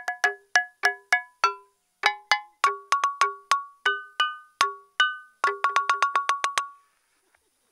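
Xê Đăng stone lithophone (đàn đá) of flat stream stones on a bamboo frame, played as a melody: each struck stone gives a clear pitched note that rings briefly. There is a short pause about two seconds in and a quicker run of strikes near the end, then the playing stops.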